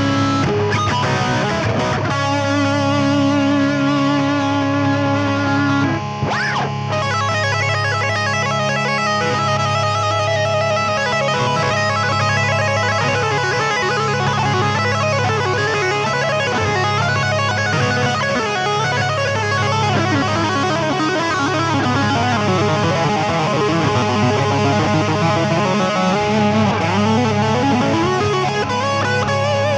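Ibanez electric guitar playing moving lead lines over a held chord that an Electro-Harmonix Freeze sound retainer pedal sustains underneath.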